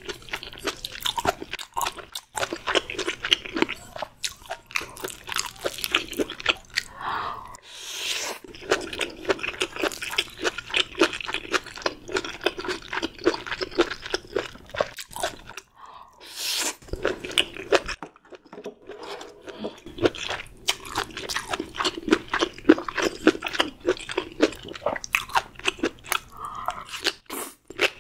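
Close-miked eating: steady chewing and biting with crisp crunches, packed with small wet clicks.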